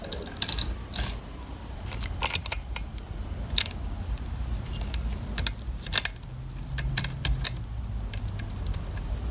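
Steel saw chain clinking and jangling as it is fed by hand around the sprocket and into the groove of a chainsaw guide bar: irregular small metallic clicks, some sharper than others.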